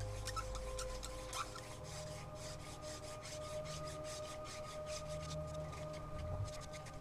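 Hand-drill fire-making: a mullein spindle spun between the palms and grinding in a charred notch in an ivy hearth board, a dry rasping rub that comes in quick repeated strokes. The hearth board is almost worn through.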